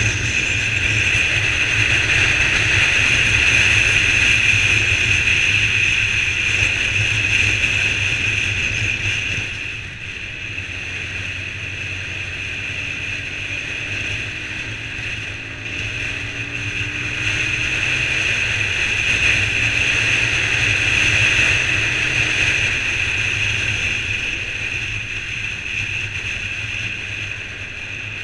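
Honda CBR125 motorcycle riding along at road speed: a steady rush of wind over the microphone with the small single-cylinder engine running underneath. The noise eases off about ten seconds in and builds again a few seconds later as the bike picks up speed.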